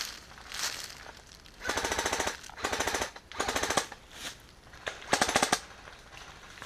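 Airsoft electric gun firing four short full-auto bursts of about half a second each, a rapid run of sharp clacks.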